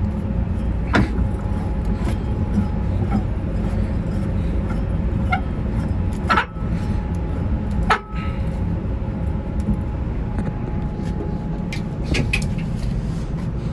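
Steady low drone of a cargo ship's engine-room ventilation blowers, which run continuously, with a few sharp metal knocks and clanks as a garbage compactor is opened.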